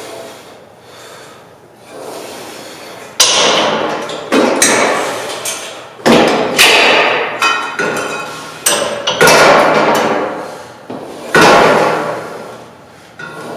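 Metal clanks from a cable crossover machine: about eight sharp, loud clangs, each ringing out briefly, as the pulley carriage is moved and the weight stack plates knock together.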